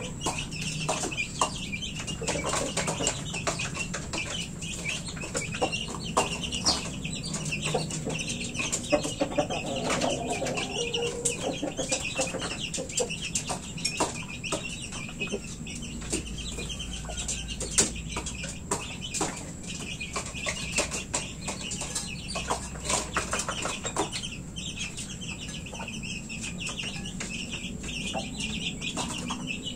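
Chickens clucking and chicks peeping, with many short clicks and rustles throughout.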